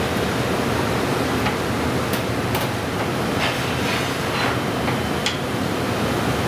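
Commercial kitchen background noise: a steady roar with a few light clicks and clinks scattered through.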